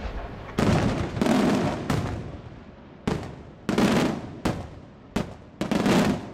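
Aerial firework shells bursting overhead in a quick, uneven string of about eight loud bangs, each trailing off in echo.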